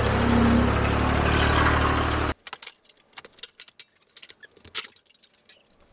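A Grasshopper zero-turn mower's diesel engine running steadily as the mower drives, stopping abruptly a little over two seconds in. After that come faint scattered clicks and knocks.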